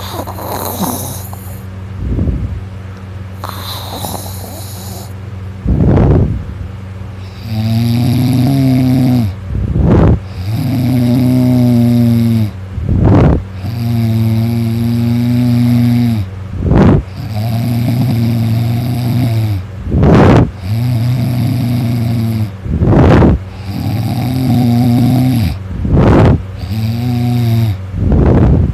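A person snoring loudly in sleep: quieter hissing breaths at first, then from about seven seconds in a regular run of long buzzing snores of a second or two, each followed by a short sharp loud burst, about every three to four seconds. A steady low hum runs underneath.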